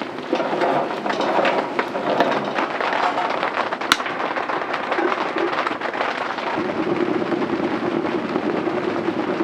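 Rain pattering on the tent's waterproof tarp, a dense steady hiss full of sharp drop ticks, with one louder tick about four seconds in.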